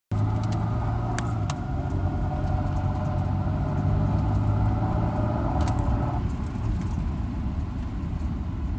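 2008 Volvo XC90 engine running steadily, with a higher whine over its low hum that stops suddenly about six seconds in: plausibly the unexplained noise the owner is chasing on this non-turbo engine.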